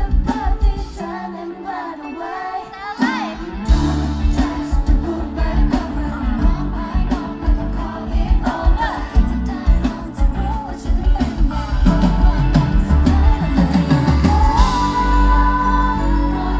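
A Thai pop song played loudly over a concert PA, with a girl group's vocals singing over the backing track. The bass and beat drop out briefly near the start and come back in full about three and a half seconds in.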